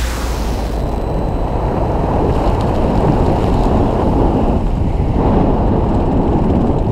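Wind buffeting an action camera's microphone during a parachute descent to landing: a steady, deep rush with no distinct events.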